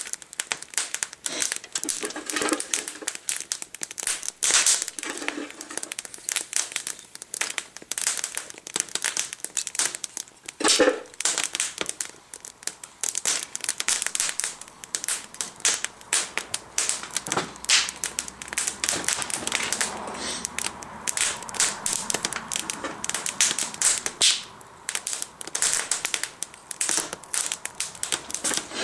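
Dense, irregular crinkling and crackling, with many sharp clicks and a few louder snaps, of something being crumpled or handled.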